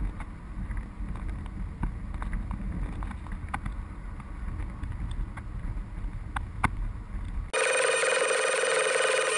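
Steady low road and engine rumble inside a moving car, with scattered light clicks. About seven and a half seconds in it cuts abruptly to louder music.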